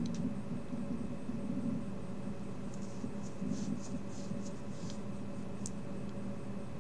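Steady electrical hum of a desk recording setup, with a run of faint, short scratchy rustles from about three to five seconds in and a single sharp click about a second later.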